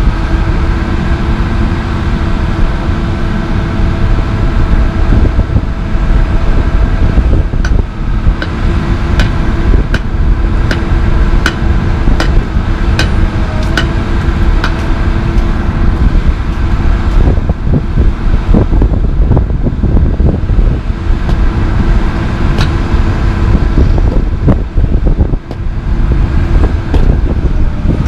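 Komatsu PC220 LC excavator's diesel engine running steadily with a steady hum from its hydraulics. Through the middle comes a run of sharp knocks of metal on concrete, about one a second, with a few more scattered later.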